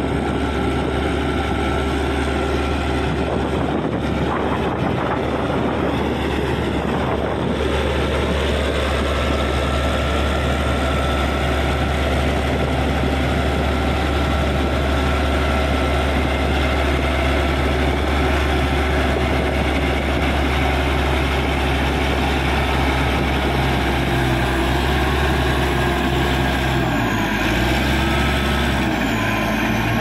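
Caterpillar D6G crawler dozer's diesel engine running steadily under load as the blade pushes wet soil, a continuous low drone; the engine note wavers briefly near the end.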